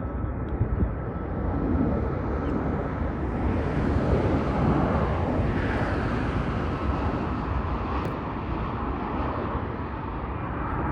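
Fighter jet on landing approach flying past, a jet engine's rushing noise with a heavy low rumble that builds to its peak about four to six seconds in and then slowly fades.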